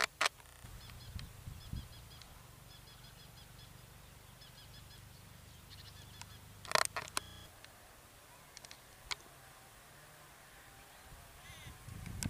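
Birds calling: short, high chirps in quick little groups through the first few seconds, with loud, sharp calls at the start and again about two-thirds of the way through, over a low rumble.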